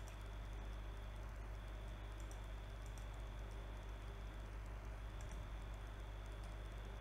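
Scattered faint clicks of a computer mouse over a steady low electrical hum and a faint high whine.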